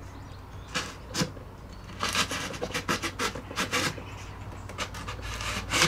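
A hand tool scraping back and forth in a slot through a balsa and veneer model wing, opening the slot wider for the dihedral brace. The strokes are irregular: a few single ones at first, then a quick run in the middle, and more near the end.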